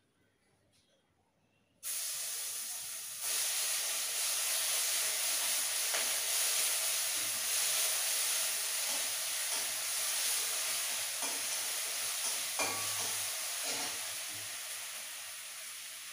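Ground spice paste dropped into hot oil in a kadai, sizzling: a sudden loud sizzle about two seconds in that grows louder a second later, then a steady hiss that slowly fades.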